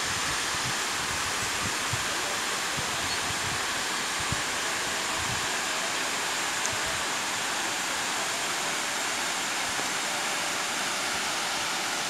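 Steady, even rush of a tall waterfall plunging down a rocky gorge.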